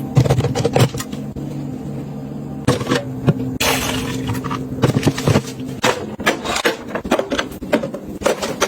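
Household items being handled and set down: a run of sharp clicks and knocks and a brief rustle, over a low steady hum that fades about two-thirds of the way through.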